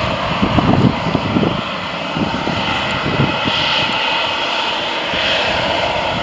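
Boeing 737-800's jet engines running steadily as the airliner rolls along the runway, a continuous roar that swells and fades a little. Low gusts of wind buffet the microphone in the first second or so.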